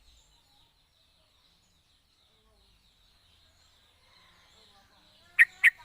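Yellow-vented bulbul calling: three loud, sharp notes in quick succession near the end, over a faint steady chirring in the background.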